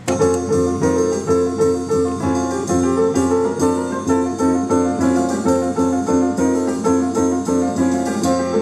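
Instrumental music with piano-like keyboard notes, played through speakers driven by an NAD 2150 stereo power amplifier under test.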